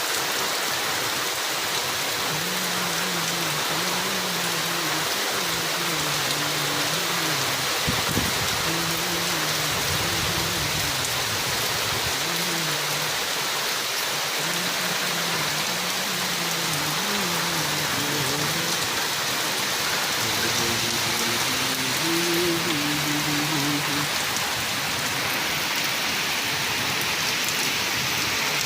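Steady rain falling, an even hiss that holds a constant level throughout. Underneath, a faint low pitched sound wavers up and down for much of the time and fades out near the end.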